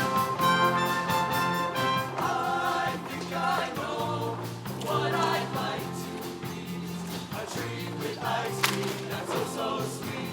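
Show choir singing with a live student band: a sustained band chord about two seconds in gives way to the choir's voices over a steady bass line.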